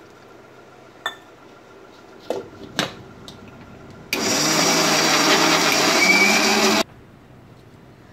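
Electric mixer grinder grinding a wet masala paste in its steel jar. A few sharp clicks as the jar and lid are handled come first. The motor then runs loud and steady for almost three seconds and cuts off suddenly.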